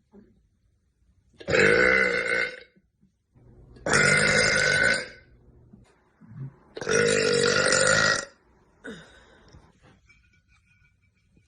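A young woman letting out three big, loud burps, each drawn out for about a second, spaced a couple of seconds apart.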